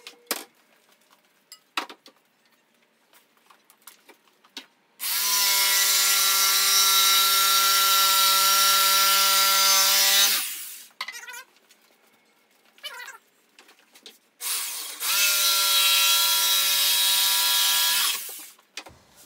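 Jigsaw cutting through the wooden workbench top in two runs, one of about five seconds and a shorter one of about three seconds, the motor whine rising briefly in pitch as each starts.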